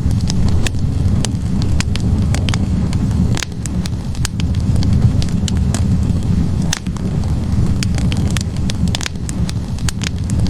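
Wood fire burning in a fireplace: a steady low rumble of flames with sharp, irregular crackles and pops from the logs.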